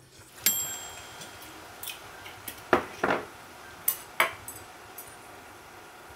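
Irregular light clicks and clinks of kitchen utensils, the first about half a second in with a short metallic ring, over a faint steady hiss.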